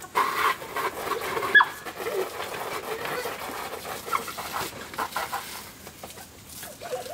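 Garden hose jet spraying and spattering onto a plastic paddling-pool sheet while a young Shetland sheepdog snaps at the water, giving short whines and squeaks; one sharp falling squeak comes about one and a half seconds in.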